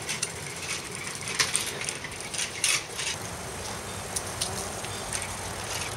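Bicycle being pushed along on foot: scattered light metallic clicks and rattles at irregular intervals over a steady low background.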